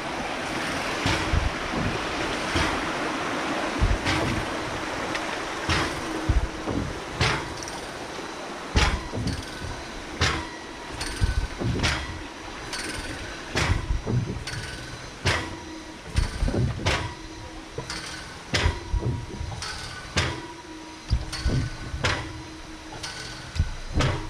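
Hydraulic ram pump waste valves slapping shut over and over, a sharp clack about once a second with an uneven rhythm, over rushing water that is loudest in the first few seconds.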